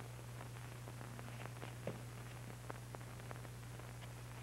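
Quiet, steady low hum with faint hiss, the background noise of an old film soundtrack, with a few faint scattered clicks.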